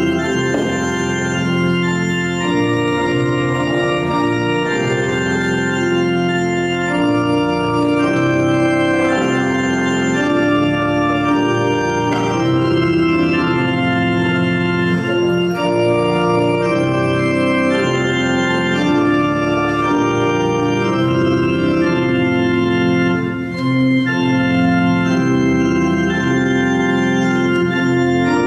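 Organ playing full, sustained chords that change every second or two.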